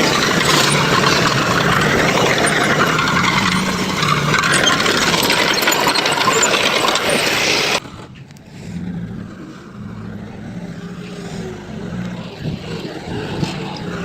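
Heavy construction machinery engine running, loud and full of noise for about the first eight seconds, then cutting abruptly to a quieter engine with a steady low hum.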